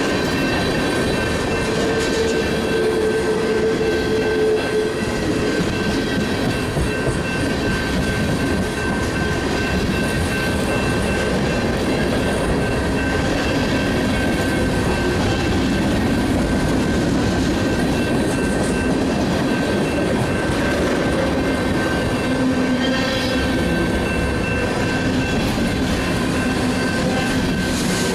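Freight train cars rolling steadily past, with continuous wheel-on-rail noise and a thin, steady ringing from the wheels.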